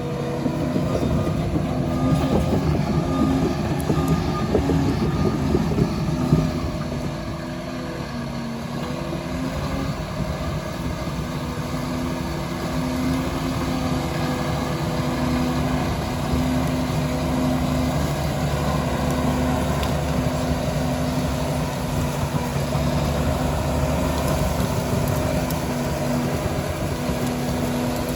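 Liebherr PR 746 crawler dozer's diesel engine running steadily, with a spell of rattling and clanking in the first eight seconds or so.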